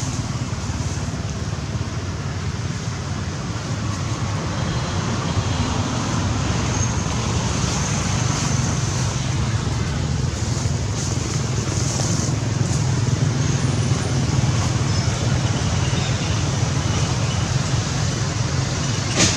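Steady rumble of passing road traffic, slowly growing louder.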